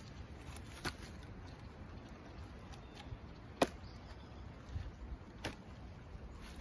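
Split firewood pieces knocking against each other as they are set onto a woodpile: a few separate sharp wooden knocks, the loudest a little over halfway through.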